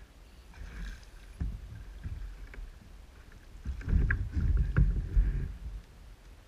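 Splashing and dripping water as a landing net holding a snapper is lifted out of the sea and swung aboard a plastic kayak, with low thumps and a few sharp knocks of the net against the hull, loudest about four to five seconds in.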